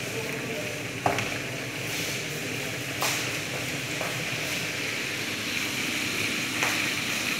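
Food frying in hot oil: a steady sizzle from meat pieces bubbling in a saucepan of oil and vegetables in a frying pan. A few sharp clicks and knocks come through it.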